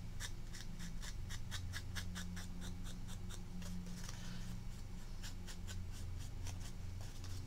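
Quick, repeated scratchy strokes of a foam ink-blending applicator rubbed along the edges of paper flower petals, about five or six strokes a second, to distress the edges with ink. A steady low hum runs underneath.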